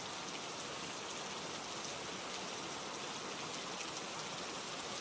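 Steady ambient rainfall, an even hiss of rain with faint scattered drop ticks.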